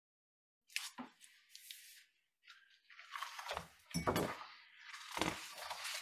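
Paper rustling, scraping and soft thumps as a large picture book is handled and moved, in a string of short bursts that start after a moment of silence and grow heavier in the second half.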